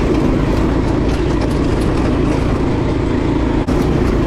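Off-road go-kart engine running steadily at speed, heard from the driver's seat with a constant rush of wind and noise from the dirt track. The sound dips very briefly about three and a half seconds in.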